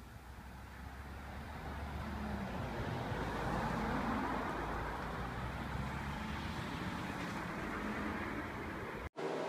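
Road vehicle noise, engine rumble and tyres, growing louder over the first few seconds and then holding steady before cutting off abruptly near the end.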